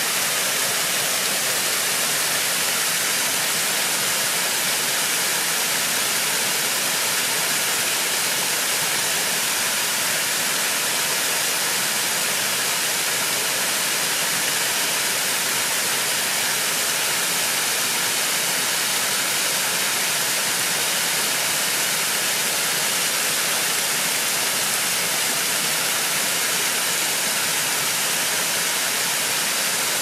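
Small waterfall pouring over a curved stone weir from a lake into a rocky pool: a steady, unbroken rushing hiss of falling water.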